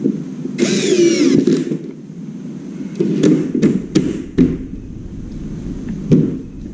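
A brief, wavering high-pitched squeal, then a series of sharp knocks and clicks, the last of them near the end.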